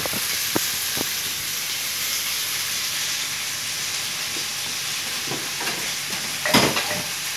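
Pork ribs sizzling steadily in a little olive oil in a frying pan over a gas flame. A few light knocks come in the first second, and a louder clatter of cookware about six and a half seconds in.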